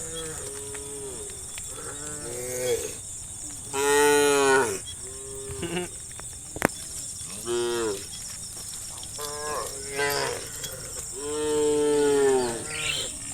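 Cattle mooing again and again, about seven calls, each rising and falling in pitch. The loudest call comes about four seconds in and a long one near the end. A single sharp click sounds about halfway through, and a steady high-pitched tone runs underneath.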